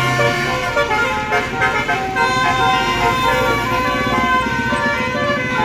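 Basuri telolet horn on a tour bus playing a melody of held notes that step from pitch to pitch, over a steady low rumble.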